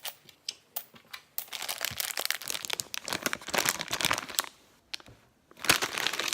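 Packaging being handled, crinkling and rustling in irregular bursts, with a brief pause about five seconds in.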